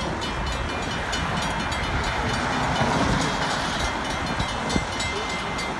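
Metra commuter train passing at speed: a steady rush and rumble of wheels on rail that swells about halfway through, with a thin steady high tone underneath.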